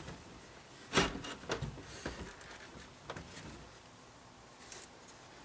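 A truck dashboard panel being wiggled loose by hand: a sharp knock about a second in, then several lighter clicks and knocks.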